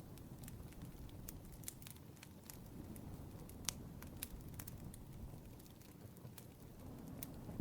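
Faint, irregular crackling clicks over a low steady rumble, with one sharper pop about three and a half seconds in.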